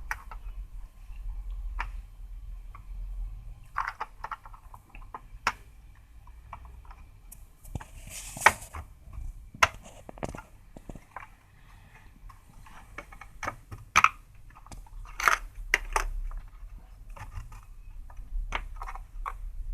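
Irregular small clicks, taps and knocks of radio parts and tools being handled and fitted, with a brief scraping rush about eight seconds in.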